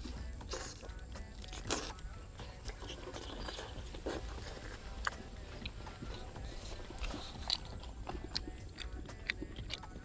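Close-up chewing and biting of stir-fried pork intestine with pineapple: irregular, rapid, wet clicks and crunches with no steady rhythm.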